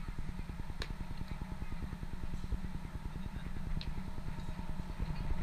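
Wind buffeting the camera microphone: a steady low, fluttering rumble. A single sharp crack cuts through about a second in, and a fainter click comes near four seconds.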